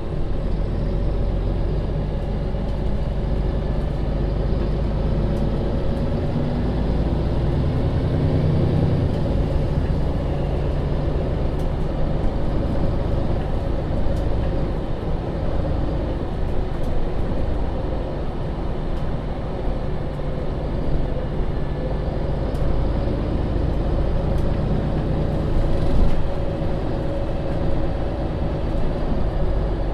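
2015 MAN Lion's City (NL 283) city bus under way: its diesel engine and drivetrain run steadily under road noise, with the engine pitch shifting briefly about a quarter of the way in.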